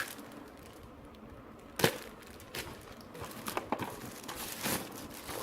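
Packaging of a GoPro chest mount harness being handled, crinkling, with scattered clicks and one sharp knock about two seconds in.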